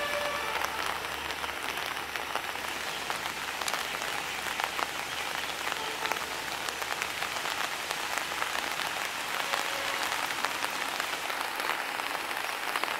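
Steady rain falling, heard as an even hiss dotted with many small drop impacts.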